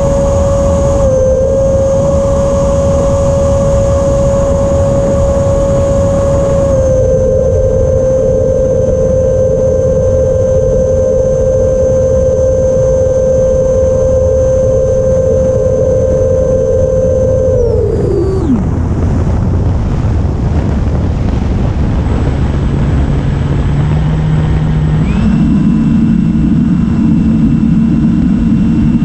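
An FMS Futura's 80mm electric ducted fan whining at a steady pitch over heavy wind rush, the pitch dipping slightly about seven seconds in. About eighteen seconds in, the fan spools down sharply as the throttle is cut. From about twenty-two seconds its whine climbs back up in steps as the throttle is opened again.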